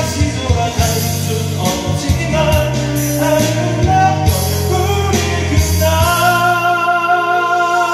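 A karaoke accompaniment of a pop ballad plays with singing over bass and drums. About six seconds in the bass and drums drop out, leaving held notes as the song winds down.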